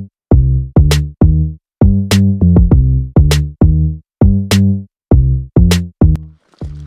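Background music: a deep, pitched bass line with a steady drum-machine beat. A sharp snare-like hit falls about every second and a quarter, between clipped bass notes.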